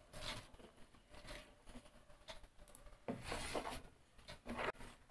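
Steel spoon stirring fermented rice-and-coconut batter in a steel bowl, mixing in salt: faint, irregular scraping and swishing strokes, louder for about a second roughly three seconds in.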